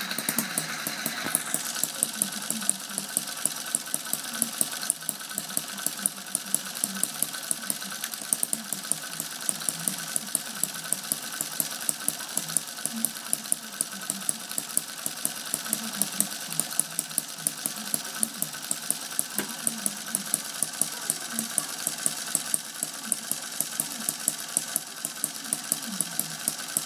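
Bob Shores 'Little Angel' model hit-and-miss engine, a tiny single cylinder of half-inch bore, running steadily with a fast, even string of sharp pops. The hit-and-miss governor is not connected, so it runs continuously instead of coasting between firings.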